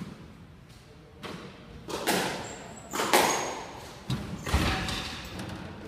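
Squash rally: the ball cracking off rackets and the court walls in a run of sharp hits, roughly half a second to a second apart, the loudest about three seconds in, with a heavy thud just after the middle.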